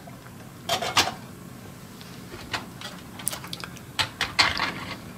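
HO scale model auto rack cars being turned around by hand and set back down on their display stands: a handful of light clicks and clatters, about a second in and again between about two and a half and four and a half seconds.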